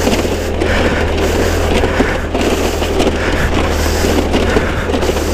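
Chinese scooter ridden across snow: its small engine running under throttle with tyre noise, mixed with a steady deep rumble of wind on the helmet-mounted microphone.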